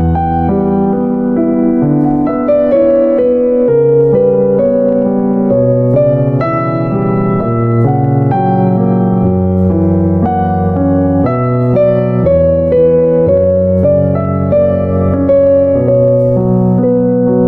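Background instrumental music: a keyboard melody, piano-like, over sustained chords, with notes changing every half second or so.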